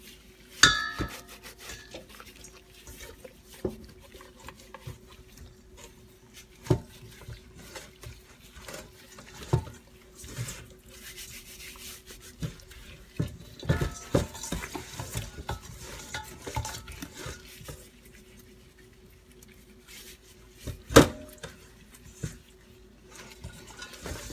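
Gloved hands scrubbing a raw whole chicken with salt and vinegar in a stainless-steel bowl: rubbing and handling noise with scattered knocks against the metal bowl. The bowl rings briefly after a loud knock about a second in, and there is another loud knock about three seconds before the end.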